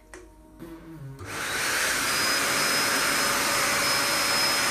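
Electric blower motor switched on about a second in, quickly reaching a steady rushing run with a thin high whine. It drives warm air through a hose into a dog's drying bag.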